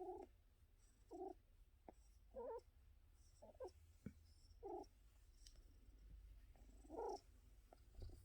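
Domestic cat purring faintly with short whimpering cries, about one a second for the first five seconds and one more near the end.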